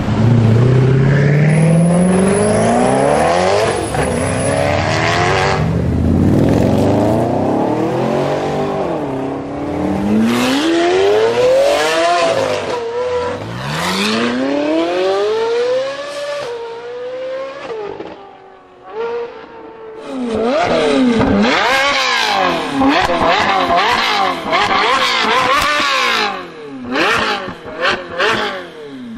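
Supercar engines revving and accelerating hard in succession. A Koenigsegg pulls away with a rising note, then a Lamborghini accelerates through a tunnel, its pitch climbing and dropping at each upshift. Near the end a Ferrari 458 Speciale's V8, fitted with an aftermarket Fi Exhaust, revs in quick rising-and-falling blips.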